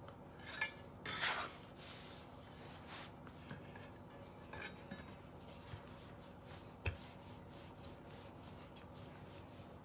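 Faint rubbing and light taps of hands and a wooden rolling pin working cold biscuit dough on a floured wooden board, with one sharper knock about seven seconds in.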